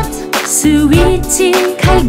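Upbeat pop song with a steady drum beat and a singing voice that alternates Korean and Chinese vocabulary words.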